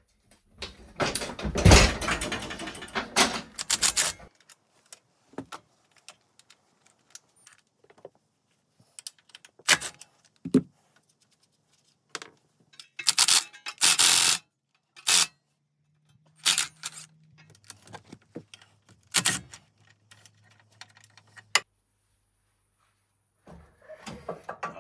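Workshop handling noises on a Husqvarna Rider riding mower. A loud rattling crash starts about a second in as the tipped-over mower is set back down on its wheels. After that come short metallic clicks, clanks and knocks from the belt, pulley and engine being handled and fitted.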